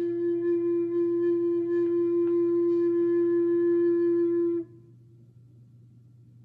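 Flute holding one long steady note, which cuts off about four and a half seconds in, leaving only a faint low hum.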